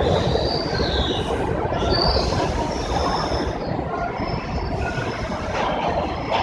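New York City subway train running through the station on the far track: a steady rumble of steel wheels on the rails, with high thin wheel squeals over it, one gliding down in pitch about a second in.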